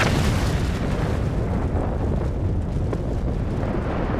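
Volcanic eruption: a dense, steady low roar that comes in suddenly.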